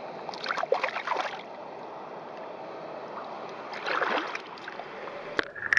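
Hands splashing in shallow river water while releasing a grayling, in two bursts, about half a second in and again around four seconds, over the steady rush of the stream. A sharp click comes just before the end.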